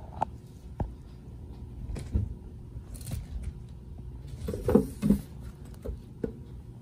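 Kittens clambering over a toy doll bunk bed and brushing against the camera: scattered light knocks, scrapes and rustling handling noise, busiest and loudest about five seconds in.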